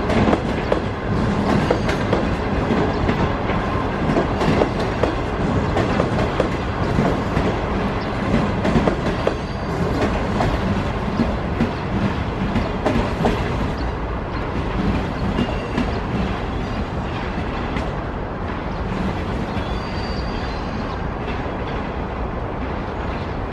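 Chinese railway passenger coaches, red 25G cars ending with a 25T car, rolling past, their wheels clicking steadily over the rail joints. The sound eases off a little over the second half as the last coach goes by, with a faint wheel squeal near the end.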